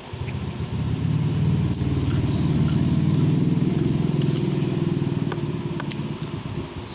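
A motor vehicle engine passing by, growing louder to a peak mid-way and then fading away.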